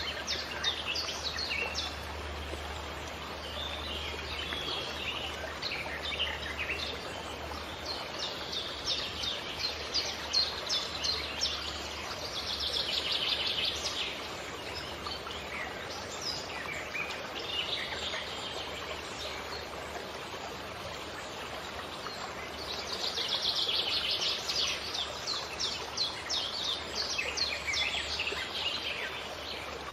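Several songbirds chirping and trilling over a steady rushing background noise, with longer fast trills about halfway through and again after about 23 seconds.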